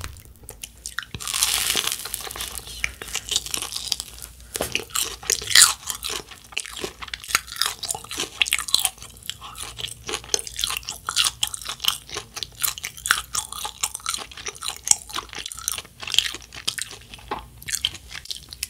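Close-miked biting and chewing of a fried pizza-flavoured cheese ball: a run of short clicks and mouth smacks, with a louder stretch about a second in.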